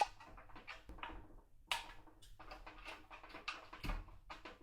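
Irregular clicks, taps and light knocks of a PC power supply being handled and fitted into a computer case, with a couple of sharper knocks near the middle and near the end.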